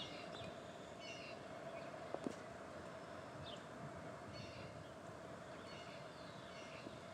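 Small birds chirping in short repeated phrases, roughly one every second, faint over a steady low drone, with a couple of small knocks about two seconds in.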